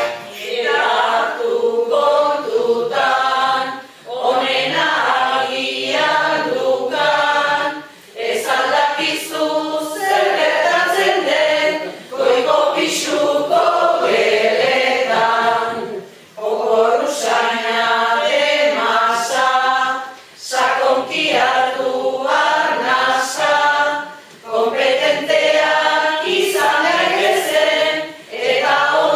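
A group of voices singing verses together, typical of Basque koplak, in phrases of a few seconds with short breaks for breath between them.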